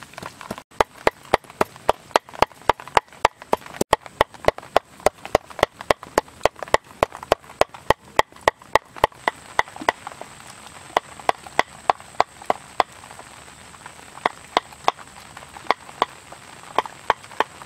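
Cleaver mincing fish flesh on a wooden chopping board: rapid, even chopping strokes about four a second, which slow into shorter runs with brief pauses after about ten seconds.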